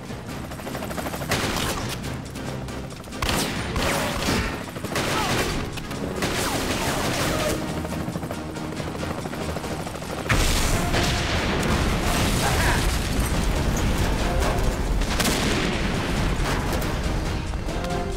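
Action-film soundtrack of gunfire over music: a string of separate gunshots, then about ten seconds in a sudden loud blast that runs on as a long, deep rumble as a shoulder-fired rocket launcher is fired.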